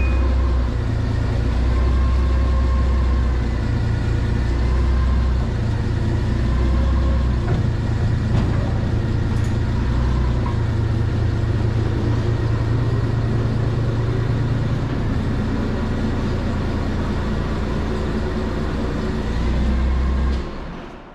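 Forklift engine running under load as it pushes a cart of stacked lumber slabs into the kiln chamber, its low rumble rising and falling in pitch. It cuts off near the end.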